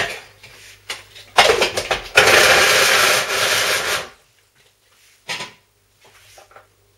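Small electric food chopper grinding chunks of cheese, run in two pulses: a short one about a second and a half in, then a longer one of about two seconds that stops just after four seconds. A short clack follows about five seconds in.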